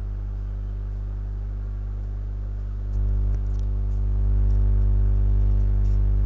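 Steady low electrical hum, a buzz of evenly spaced low tones, getting louder about three seconds in and again about a second later, with a few faint ticks.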